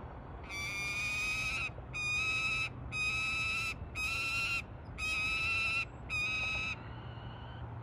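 Peregrine falcon calling: a series of six drawn-out, slightly wavering calls, each under about a second long, with short gaps between them.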